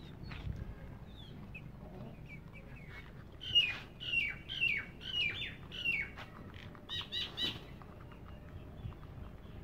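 Birds chirping: a run of about six short, falling calls about half a second apart, then a quick group of three calls, with fainter chirps around them.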